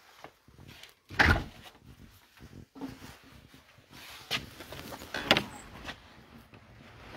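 A door opening and closing about a second in, the loudest sound, followed by a few lighter knocks and rustling as someone walks out.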